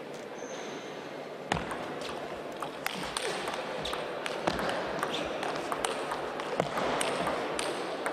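Table tennis serve and rally: the ball clicks sharply off the bats and table in quick succession, starting about a second and a half in, over steady hall noise.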